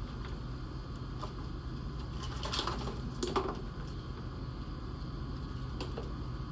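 Hand tools and loose car parts being handled. There are scattered light clicks and a short clatter about two and a half and three and a half seconds in, over a steady low hum.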